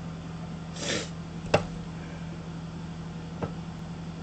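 A steady low hum throughout. About a second in there is a short rustle, then a sharp click just after, and a lighter knock about two seconds later.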